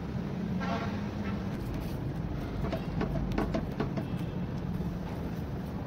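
Wooden spoon stirring a thickening cornflour and juice mixture in a steel pan on a gas burner: scattered clicks, knocks and scrapes against the pan over a steady low rumble.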